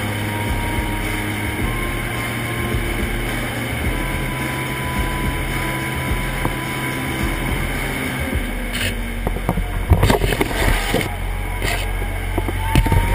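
A steady low drone with faint held tones above it, then a cluster of sharp knocks and rustling about ten seconds in.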